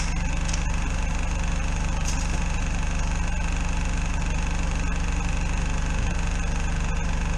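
Engine of a drain jetting unit running steadily at a constant speed: an even, low-pitched hum that drives the high-pressure water jet.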